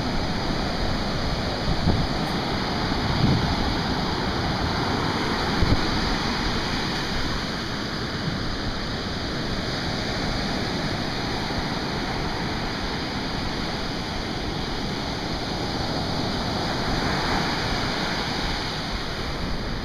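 Surf breaking and washing up onto a sandy beach: a steady, even rush of waves.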